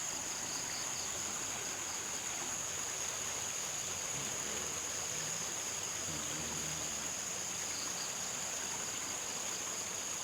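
Steady high-pitched chorus of night insects such as crickets, droning without a break.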